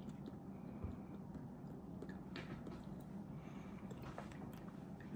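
Faint sounds of a meal being eaten: quiet chewing and a few light clicks of utensils, over a low steady room hum.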